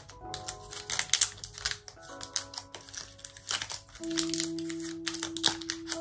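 Soft background music with held notes, over the clicking and crinkling of the plastic wrapper of a block of polymer clay being handled and opened.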